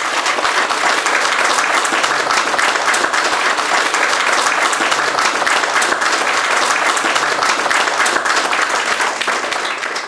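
Audience applauding: steady, dense clapping from many hands.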